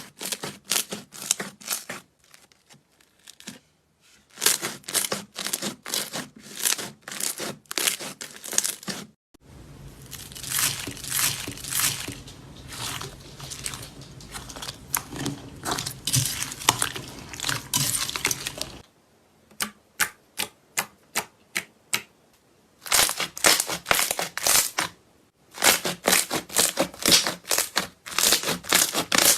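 Slime being squeezed and poked by hand: bursts of dense crackling and popping clicks, with a longer unbroken crackling stretch in the middle and a short run of separate single pops about two-thirds of the way through.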